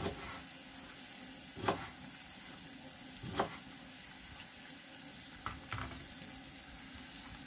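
A kitchen knife cutting beetroot on a plastic cutting board, a few sharp separate taps about a second and a half apart, over a steady sizzle of food frying in a pan.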